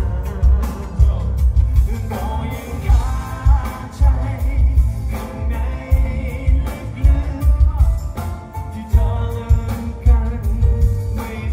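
Live pop-rock band music amplified through a stage PA: a male singer singing into a microphone over electric guitar and a heavy, steady drum-and-bass beat.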